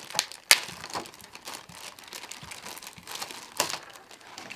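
Plastic packaging crinkling and rustling as it is unwrapped by hand, with sharp crackles, the loudest about half a second in and another a little after three and a half seconds.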